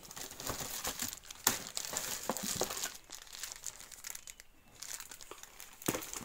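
Clear plastic packaging crinkling and crackling as wrapped chrome car-trim pieces are handled in a cardboard box, in irregular sharp snaps. It goes quieter a little past the middle and picks up again near the end.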